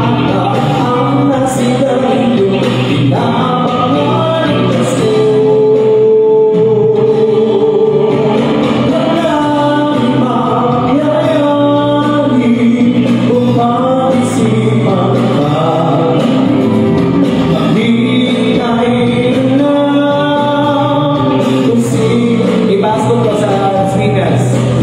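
A man singing into a microphone, amplified through a PA, over backing music, holding one long note about five seconds in.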